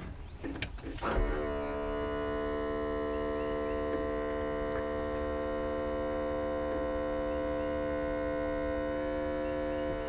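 Electric power trim/tilt pump of an Evinrude 90 HP V4 outboard running steadily as the motor is tilted down into the water. The hum starts about a second in and holds at one steady pitch.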